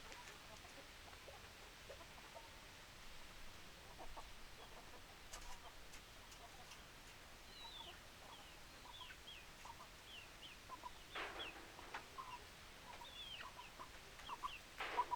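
Chickens giving many short, quick calls that fall in pitch, sparse at first and coming thick from about halfway through, with a couple of brief rustling noises near the end.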